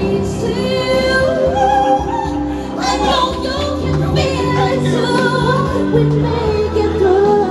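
A woman singing into a microphone over instrumental accompaniment, with long held notes over a steady bass line.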